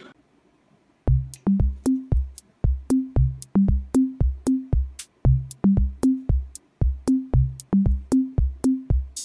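Background music: after about a second of near silence, an electronic drum-machine beat starts, with a deep kick and short low pitched notes, about three hits a second.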